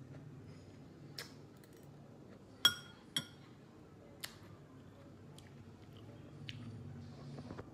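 A metal spoon clinking against a dish a few times, sharp and brief, with two louder ringing clinks close together about halfway through, over a low steady hum.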